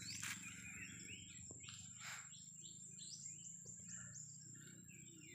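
Wild birds calling faintly, with scattered chirps and a quick run of short rising notes around the middle.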